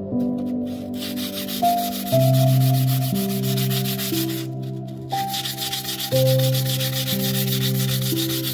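A 150-grit sanding sponge rubbed quickly back and forth over carved wood, in two spells with a short pause about four seconds in. Soft background music with held notes plays throughout.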